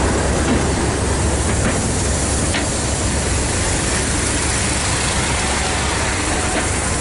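A diesel-hauled train of passenger coaches rolling past along the platform: a steady rumble of wheels on the rails with a few faint clicks.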